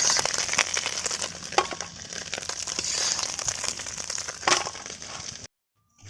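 Small freshwater fish sizzling in hot oil in a pan as they are lifted out, finished frying, with a couple of sharp knocks of the spatula against the pan. The sizzling cuts off suddenly near the end.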